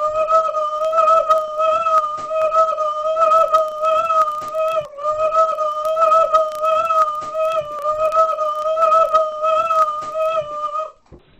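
A child's voice holding one long, high, slightly wavering note, drawn twice with a short break about five seconds in, over repeated thumps of stomping feet.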